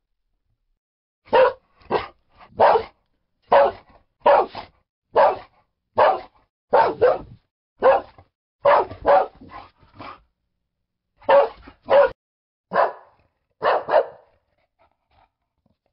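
A dog barking repeatedly: about twenty short, sharp single barks, some in quick pairs, starting after a brief pause and stopping shortly before the end.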